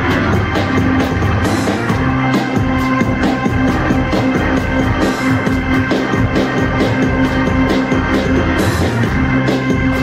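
Live band music: an electric organ holding chords over a steady, regular beat with cymbals.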